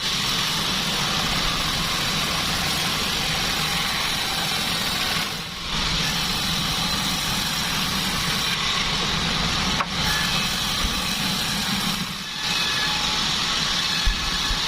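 Band sawmill running steadily at sawing durian wood, a constant loud mechanical drone that drops off briefly twice, with a single sharp click about two-thirds of the way through.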